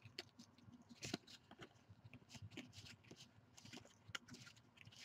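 Faint, irregular flicks and rustles of a stack of Donruss basketball trading cards being thumbed through by hand.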